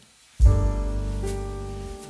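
Soft background piano music: sustained chords over a low bass, coming in about half a second in after a brief hush.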